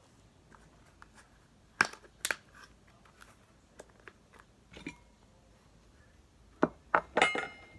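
Sharp clicks and crinkles of a container of dry baby rice cereal and a bowl being handled, a few at a time, with a quick cluster near the end that includes a brief ringing tap.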